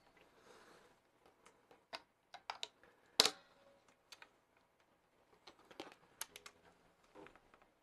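Scattered faint clicks and taps from an electric guitar being handled, the loudest about three seconds in.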